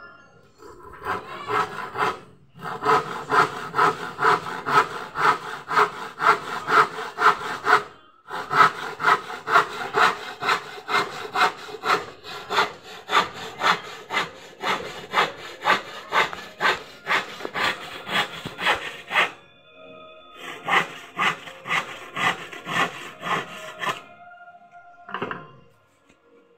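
Handsaw cutting through a palochina pine board with steady back-and-forth strokes, about two a second, pausing briefly twice. The sawing stops about 24 seconds in and a single knock follows.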